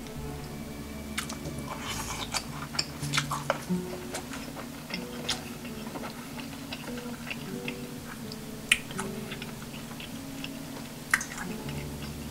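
A person chewing a mouthful of steamed cabbage leaf wrapped around rice, with clusters of small mouth clicks in the first few seconds and a few more later on. Quiet background music plays under it.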